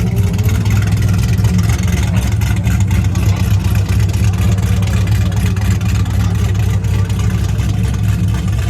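Car engine running with a steady, loud low rumble.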